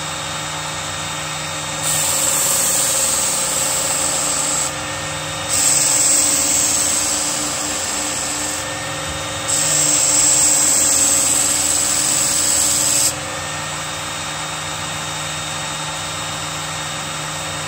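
Work Sharp Ken Onion Edition electric belt sharpener running steadily, with a knife blade pressed to its abrasive belt three times, each pass a few seconds of louder, hissing grind.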